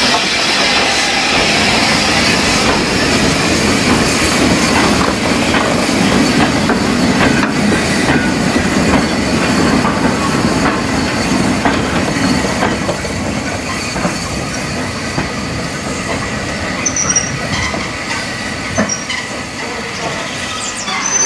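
Goods train passing close by behind a Southern Railway Schools class steam locomotive: steam hiss as the engine goes by, then the wagons' wheels clicking over the rail joints, the sound slowly fading towards the end.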